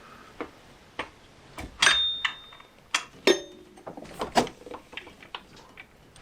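Irregular metallic clinks and knocks of hand tools and parts being handled while a belt tensioner is fitted on the engine. The loudest come about two, three and four seconds in, and one rings briefly like struck metal.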